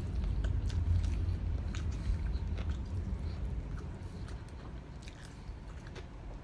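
Close-up chewing and biting of a whole chicken wing: scattered sharp, wet mouth clicks over a low rumble, growing quieter toward the end.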